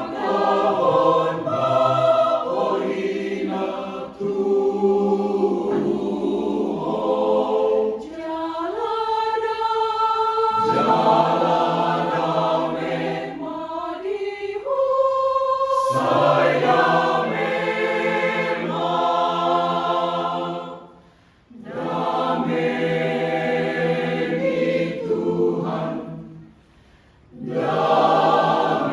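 Choir rehearsing a song, many voices singing together in harmony, with a brief pause about two-thirds of the way through and another shortly before the end.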